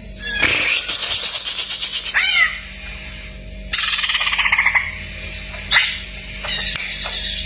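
Cucak ijo (green leafbird) singing a varied, mimicking song: a fast high trill, then sharp down-slurred whistles and a long falling buzzy phrase, with short chips between them. A faint steady hum runs underneath.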